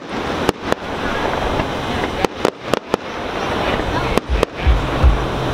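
Aerial firework shells bursting and crackling overhead, with several sharp bangs and a couple of deep booms about four to five seconds in.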